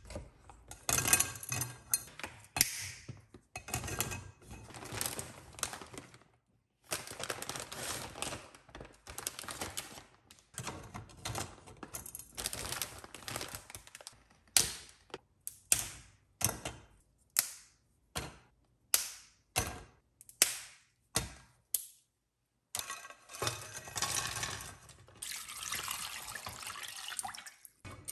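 Dried wide sweet-potato glass noodles and dried tofu-skin sticks (fuzhu) being snapped by hand, a long run of sharp irregular cracks with pieces clattering into a pot. Near the end a steadier rush of water poured over them to soak.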